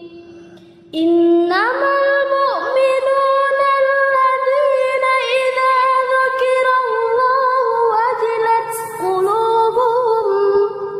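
A single high voice reciting the Quran in drawn-out melodic style, holding long ornamented notes that waver and slide, after a short pause of about a second.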